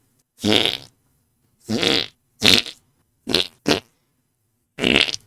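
A series of six short fart noises made by a person, each a fraction of a second long with a buzzing, wavering pitch. Two of them come in quick succession near the middle.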